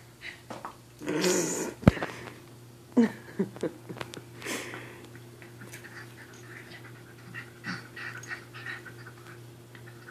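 A miniature pinscher and a sphynx kitten play-wrestling: scuffling, with short breathy, wheezy sounds from the dog. The loudest breathy sound comes about a second in, followed by a sharp knock, then lighter scuffling with small clicks.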